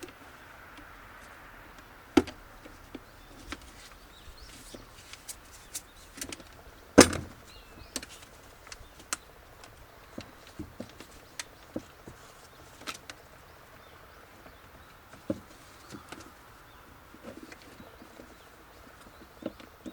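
Irregular sharp clicks and knocks of hand work, with one loud knock about seven seconds in and others near two and fifteen seconds.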